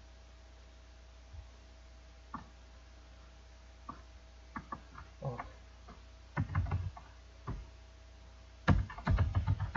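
Computer keyboard keys and mouse buttons clicking in scattered single taps, then a quick run of keystrokes near the end, over a faint steady electrical hum.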